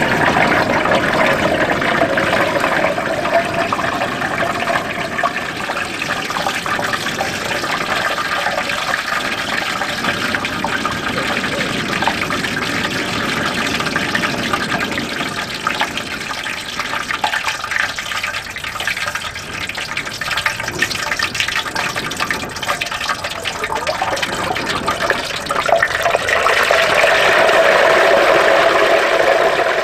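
Hot oil in a propane turkey fryer sizzling and bubbling steadily as a whole turkey is lowered into it on its hook, growing louder a few seconds before the end.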